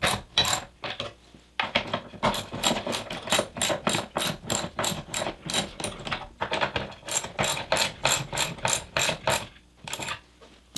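Socket ratchet clicking as it runs nuts down onto carriage bolts: a quick, even run of clicks, about four or five a second. It pauses briefly about a second in and stops near the end.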